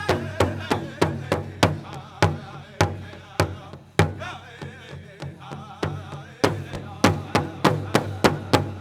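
Powwow drum group striking a large shared drum together in a steady beat of about three strokes a second, with male voices singing a chicken dance song over it. In the middle the strokes spread out to single hard hits, then the fast beat returns, and the song ends with the drum stopping right at the end.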